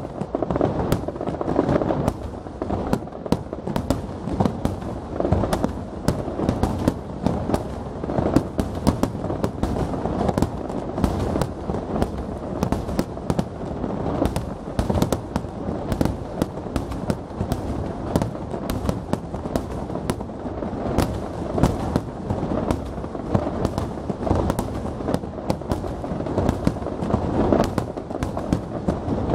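Aerial firework shells bursting in rapid succession during the closing part of a display: a dense, unbroken barrage of bangs, many per second.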